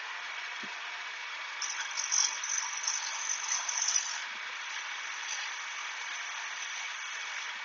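A Shopsmith running a grinding wheel with a steady hiss, while a fine diamond honing tool is pressed against the spinning stone to dress it flat. The contact gives a gritty scraping hiss that starts about one and a half seconds in and is loudest for a couple of seconds, then goes on more lightly until near the end.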